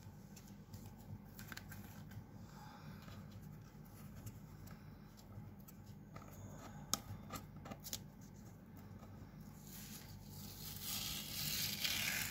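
Faint rustling and scattered small clicks over a steady low hum, with one sharper click about seven seconds in and a louder rustle building near the end.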